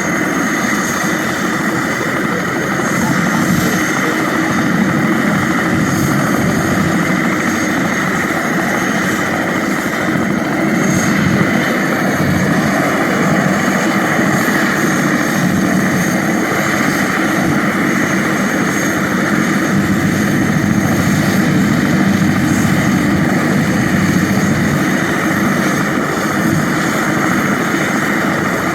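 Helicopter engine and rotor running steadily, with no rise or fall in level.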